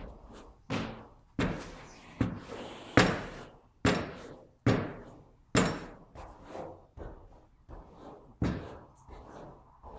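Horses banging on their stable half-doors, about a dozen heavy knocks roughly once a second, each echoing in the stable. The horses are impatient to be let out.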